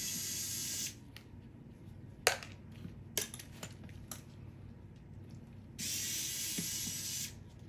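Hammerhead cordless electric screwdriver whirring in two runs of about a second or more each while it backs out two Phillips screws, with a few sharp clicks between the runs.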